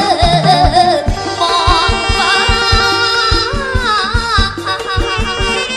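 Loud live band music: a wavering, ornamented lead melody over a steady, regular kick-drum beat.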